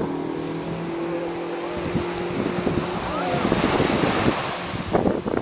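A small wave breaks and washes up the shallow beach a little after three seconds in. Before the wave, a steady motor hum is heard; it fades out as the wave comes in.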